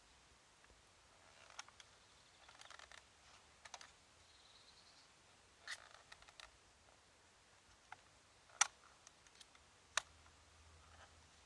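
Scattered plastic clicks and short scrapes from handling an Acer Aspire 5750 laptop and its battery pack, with two sharper clicks about a second and a half apart in the second half.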